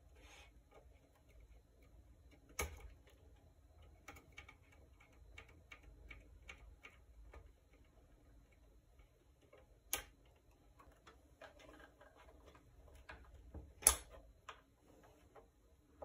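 Faint small clicks and light taps of needle-nose pliers and fingers working the wire connectors on a bass combo amp's control board, with three sharper clicks spread through.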